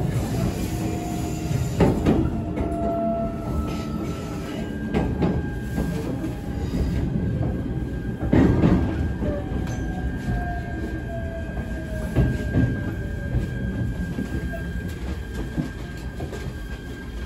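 Joetsu Line train braking into a station, heard from inside the carriage: a steady rumble of wheels on rail with thin, drawn-out squeals that slide slowly down in pitch, and two clunks, about two and eight seconds in, as it slows to a stop.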